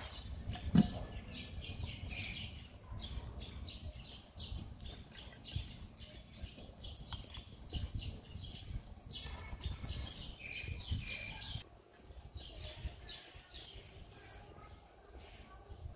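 Scuffling and rustling as two baby monkeys wrestle on artificial grass, with one sharp thump about a second in. Many short high-pitched chirps run through it.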